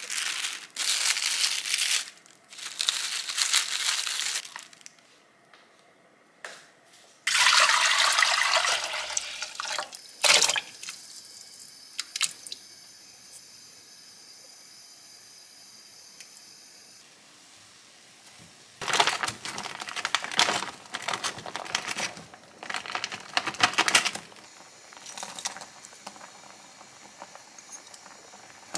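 Plastic cling wrap crinkling in several loud bursts as it is stretched over a tray. A couple of seconds of running water follow, then a few sharp clicks, and later more bouts of crinkly rustling.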